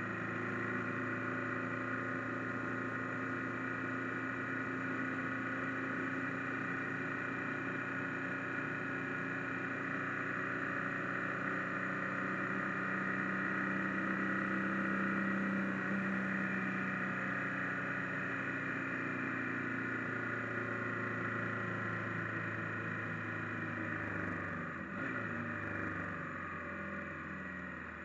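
Motorcycle engine running at a steady cruise heard from the rider's position. Its note rises a little about halfway through, then falls and wavers a few seconds before the end as the level drops.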